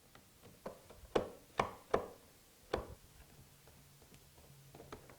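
Sharp clicks and knocks of a Phillips screwdriver and loosened screws against the plastic base plate of an upright vacuum cleaner, the loudest cluster about one to two seconds in, fainter ticks after.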